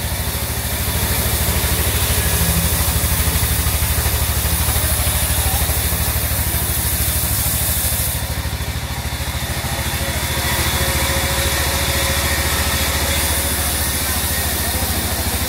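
A large band sawmill runs steadily as its blade rips lengthwise through a teak slab. The machine's drone has a fast, even pulse, with a hiss of cutting above it that swells for a few seconds in the middle.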